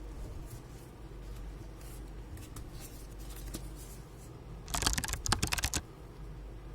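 Plastic clicking and rattling from a laptop being handled and worked on: scattered light clicks, then about a second of rapid, louder clicks about five seconds in.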